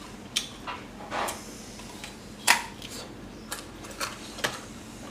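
A person eating with their mouth close to the microphone: scattered wet clicks and smacks of chewing, with one louder smack about halfway through.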